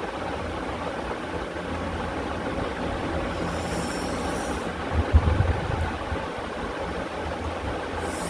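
Steady background hum, with eating sounds of pani puri. A short crisp crunch comes about three and a half seconds in, and low soft bumps follow about five seconds in.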